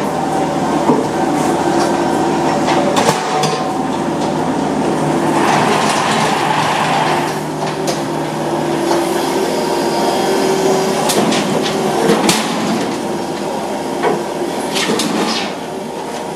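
A machine running steadily, with scattered knocks and clanks.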